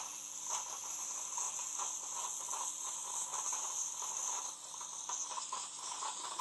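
Bosch Tassimo pod machine hissing as it lets off steam just after brewing a hot chocolate, with a faint crackle under the hiss; the hiss weakens about five seconds in.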